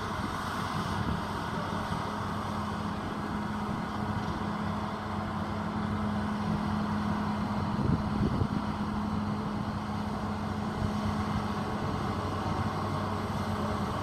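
Single-drum road roller's diesel engine running at a steady hum as the machine drives slowly forward, with a few brief low thumps about eight seconds in.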